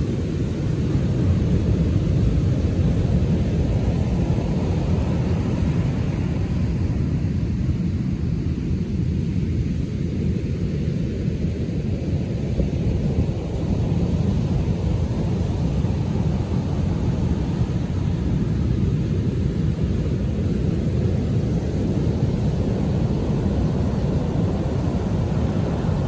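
Rough Atlantic surf after a storm: waves breaking and foam washing up the sand, a steady low rumble that swells slightly about a second in and again near the middle.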